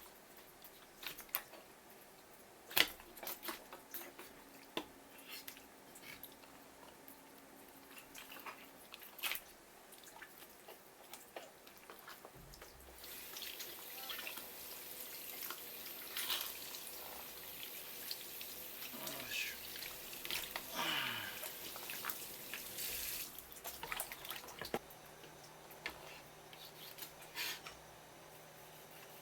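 Kitchen work sounds: scattered knocks and clicks of handling fish and utensils, with a tap running for about ten seconds in the middle.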